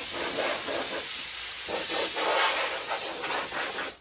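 Compressed-air blow gun blasting a loud, steady hiss, blowing dirt off plastic motorcycle parts; it shuts off abruptly at the very end.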